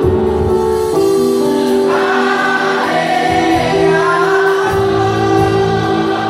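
Gospel worship song: many voices singing together over sustained chords, with a low bass line coming in about two thirds of the way through.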